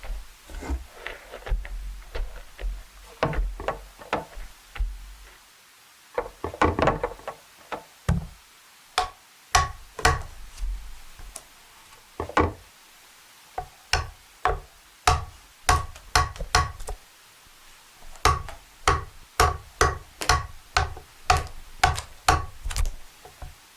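Repeated sharp knocks of a hand tool on wood, irregular at first, then settling into a steady run of about two a second near the end.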